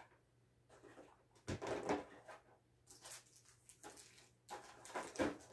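Trading cards and an opened booster-pack wrapper being handled: rustling and crinkling in several short bursts, with a bump about a second and a half in.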